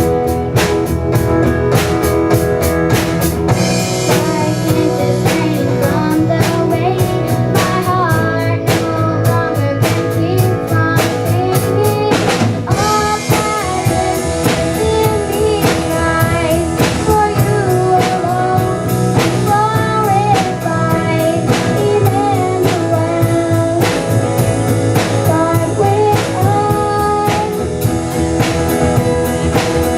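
A band playing a song with singing, drum kit and guitar, on a steady beat.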